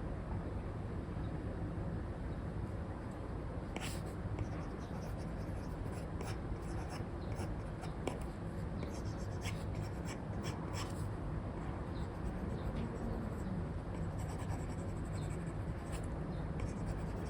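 Stylus pen strokes on an iPad screen: an Apple Pencil 2 with an Elecom nib scratching and tapping on a paper-like screen film in short, irregular strokes, over a steady low background hiss.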